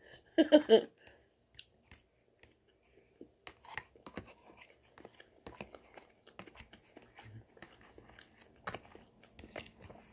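A person eating with a fork: metal fork tines clicking and scraping on a plate, with soft chewing and mouth sounds between the clicks. A brief voice sound comes about half a second in.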